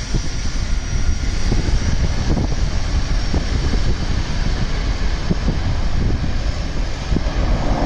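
Turboprop engines of a de Havilland Twin Otter floatplane running steadily as it descends to land on the water, with wind buffeting the microphone.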